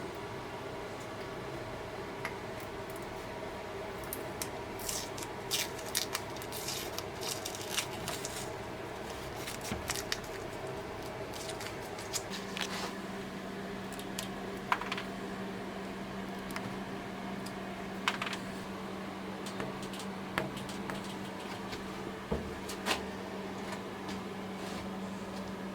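Scattered light clicks and taps, like small parts or tools being handled, over a steady mechanical hum; a low steady tone joins the hum about halfway through.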